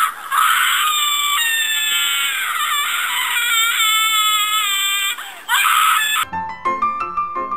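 A loud, high-pitched wailing cry whose pitch wavers and slides up and down, cutting off abruptly about six seconds in. Short notes of music follow.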